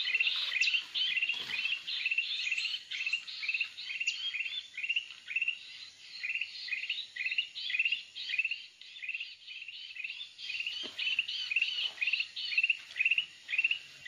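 Recorded kutilang emas (bulbul) lure call played on a loop through a speaker: short, high chirps repeating evenly, about three to four a second, without a break.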